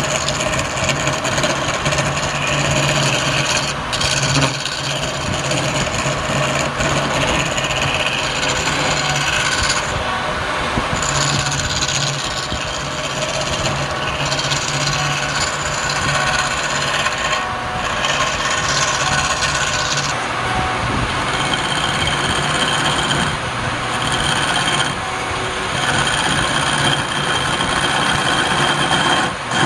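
Wood lathe running with a steady motor hum while a tool scrapes against the spinning palm wood, the scraping coming and going in passes a second or two long.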